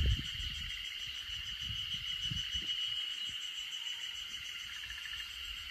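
Steady chorus of insects: a continuous high buzzing with a fine, even pulse, with soft low thumps underneath.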